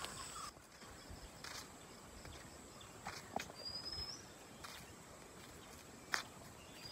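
A bird repeating a short rising whistle every three seconds or so, over a few scattered footsteps on dry, leaf-littered ground.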